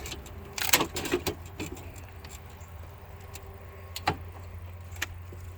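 Scattered metallic clicks and clanks as a replacement rear window regulator is worked into a 2006 GMC truck's rear door, with a cluster of knocks about a second in and single sharp clicks about four and five seconds in, over a steady low hum.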